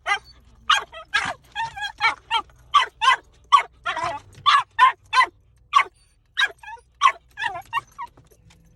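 An animal giving a rapid run of short, high-pitched yips, about two or three a second, stopping near the end.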